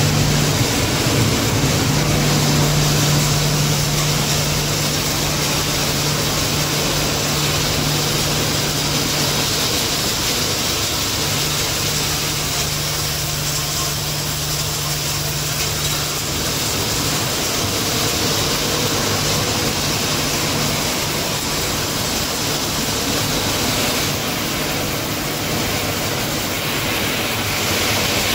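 Motherboard crushing and sorting line running: a steady din of motors, blower fans and conveyors, with a low hum that drops out for a couple of seconds about ten seconds in.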